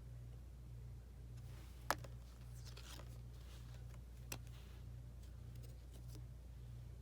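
Trading cards being handled: a sharp click about two seconds in, a smaller one a couple of seconds later and some light rustling, over a steady low hum.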